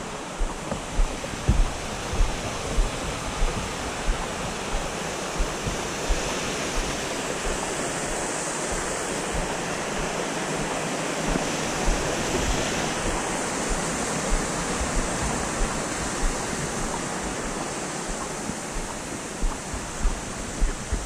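Steady rush of a waterfall's falling water, brightening midway. Over it come low thuds of footsteps on a wooden boardwalk, regular but pausing for a few seconds in the middle.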